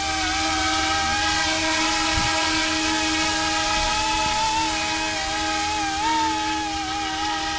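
Electric RC scale helicopter (YUXIANG F09-S, Coast Guard UH-60) in flight: a steady high motor-and-rotor whine whose pitch wobbles slightly as the throttle is worked, briefly rising about six seconds in, over a steady lower hum.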